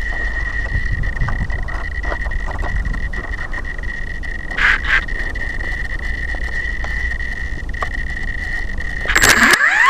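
Mini Titan electric RC helicopter sitting on its skids before take-off: a steady high-pitched electronic tone over a low rumble, with a few clicks. Near the end the motor starts to spin up, its whine rising in pitch.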